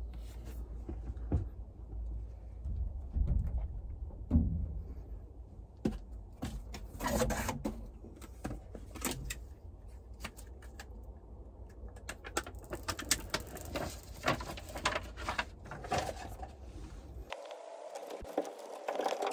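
Rustling, crinkling and tapping as sheets of Kilmat foil-backed sound-deadening mat are handled, peeled and pressed onto a vehicle's bare sheet-metal roof; irregular clicks and rustles come in flurries, busiest about 7 s in and again from about 12 to 16 s in, over a low rumble that cuts off suddenly near the end.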